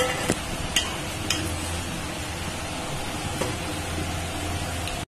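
Metal spoon scooping cooked biryani rice out of an aluminium pot, with a few light clinks of spoon against the pot in the first second and a half and one more later, over a steady hiss.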